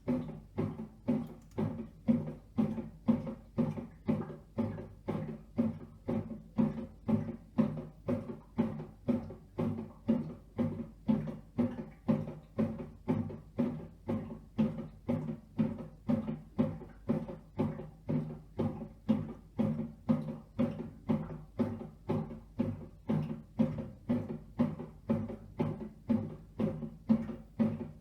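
Redmond RBM 1908 bread maker kneading: short low pulses of motor hum and thudding, about two a second, in an even rhythm.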